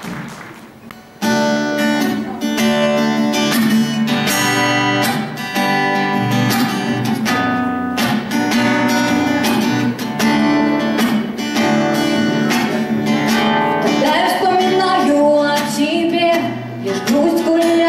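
Acoustic guitar strumming chords in a live instrumental break that comes in sharply about a second in; a female voice comes back in singing near the end.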